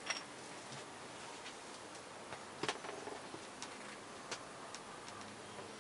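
Faint steady outdoor hiss with scattered sharp ticks and clicks, the loudest a little under three seconds in. No thunder is heard from the storm cloud.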